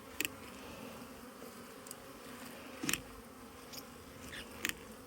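Honeybees buzzing steadily around an open hive, with a few sharp clicks, the loudest about three seconds in.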